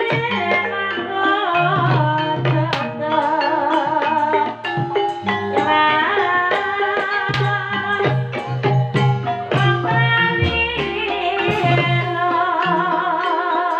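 Live ebeg horse-dance music: a Javanese gamelan-type ensemble of struck pitched percussion and drums playing steadily, with a singer's wavering vocal line over it.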